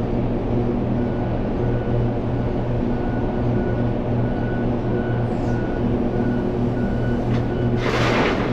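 Heavy vehicle engine idling steadily, with a brief loud hiss near the end.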